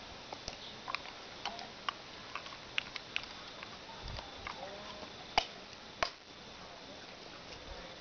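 Pigs grazing, biting off and chewing grass: irregular sharp clicks and snaps, the two loudest about five and six seconds in.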